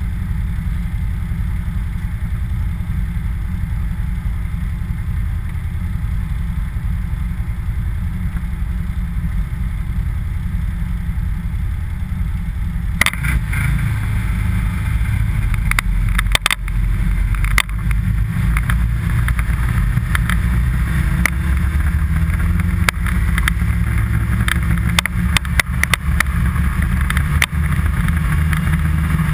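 A steady low rumble, joined about halfway through by irregular crackling, scraping and clattering as the camera goes down the packed-snow trail behind the sled.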